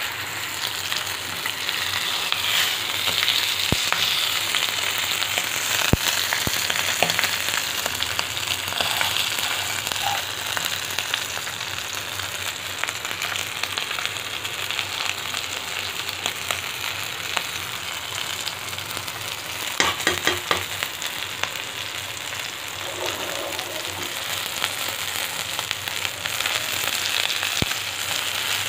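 Spice-coated fish shallow-frying in hot oil in a nonstick frying pan, sizzling steadily. A few sharp pops stand out, with a short run of them about twenty seconds in.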